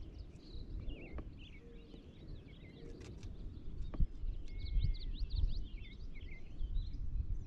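Birds chirping and singing, a flurry of quick chirps in the second half, over a low rumble, with one sharp click about four seconds in.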